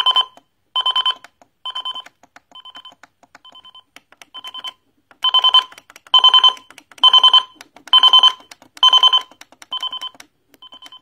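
Projection alarm clock's alarm beeping, in bursts of rapid pulses a little more than once a second. It gets quieter over the first few seconds, louder again from about five seconds in, and quieter near the end, as the alarm volume is stepped down and up.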